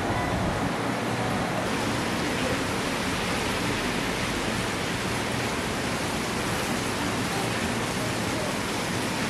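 Steady rushing noise with no clear pattern, turning a little brighter about two seconds in.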